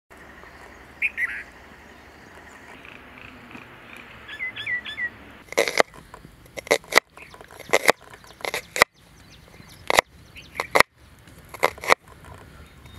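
A small bird chirps a few short calls. About halfway through, a steel cleaver starts chopping an onion on a wooden cutting board, with sharp knocks of the blade on the board about once or twice a second.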